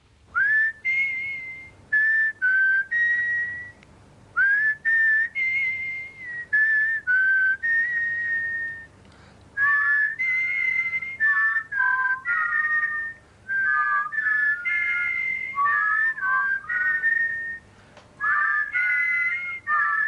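A tune whistled in short phrases, the notes often sliding up into pitch. From about ten seconds in, two whistled lines sound together in harmony.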